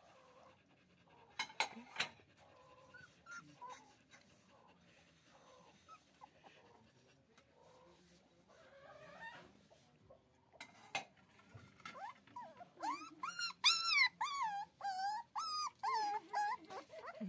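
A puppy whining and whimpering in high, wavering cries, faint at first and much louder over the last five seconds. A couple of sharp clicks come near the start.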